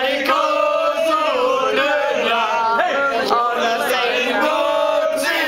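A small group, mostly men's voices, singing a song together, with long held notes.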